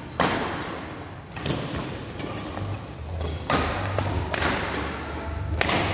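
Badminton rackets striking the shuttlecock in a fast doubles rally: about five sharp hits, a second or so apart, echoing in the hall. One of them, about two-thirds of the way in, is a jump smash.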